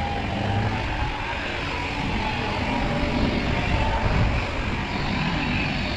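Steady motor-vehicle rumble with road or traffic noise, running without a break.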